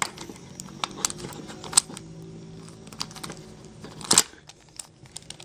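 Irregular plastic clicks and clacks of a Maru 5x5 puzzle cube's pieces as its layers are turned and an edge piece is pried at to take it apart, with a sharp click about two seconds in and a louder one about four seconds in.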